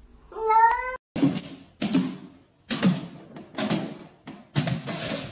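A wet cat being held in a bathtub gives one loud meow that rises in pitch. After a break, five loud thuds follow, about one a second.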